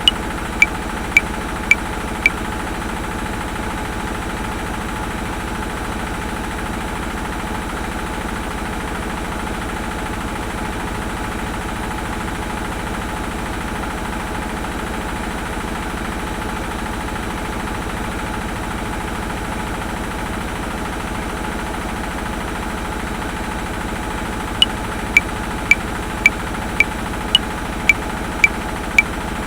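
Washing machine running with a steady churning hum. A metronome clicks at 110 beats per minute in 5/4, with an accent on each bar's first beat, for the first couple of seconds. It stops, then comes back in about five seconds before the end.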